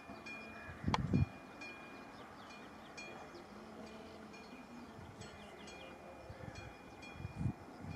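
Small birds chirping, short high notes repeated over and over, with gusts of wind rumbling on the microphone about a second in and again near the end.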